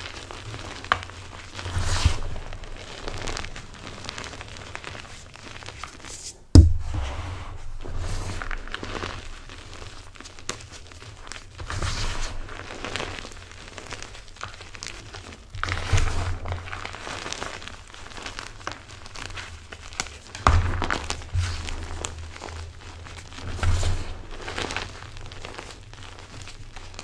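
Blocks of gym chalk crunching and crumbling as hands squeeze them in a pile of cornstarch, in irregular handfuls with soft thumps, and one loud sharp knock about a quarter of the way in.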